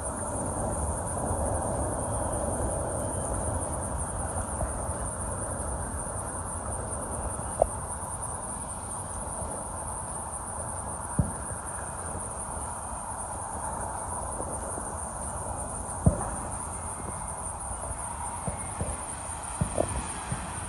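Insects chirring steadily in a high, even note over a low, even rumble, with a few sharp clicks at intervals.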